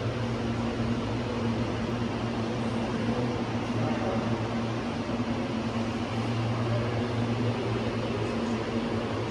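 Steady mechanical hum: a low drone over an even hiss that does not change.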